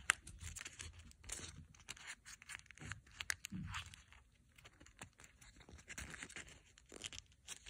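Folded sheet of origami colour paper rustling and crinkling under the fingers as it is pressed and pulled into shape, in faint, irregular crackles.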